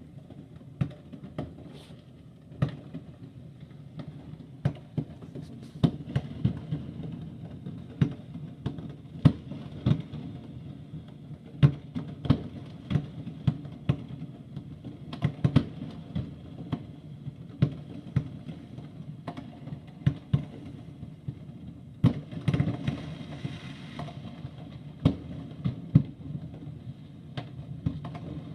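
Fireworks going off: irregular sharp bangs, sometimes several in quick succession, over a steady low rumble, with a spell of denser crackling about three-quarters of the way through.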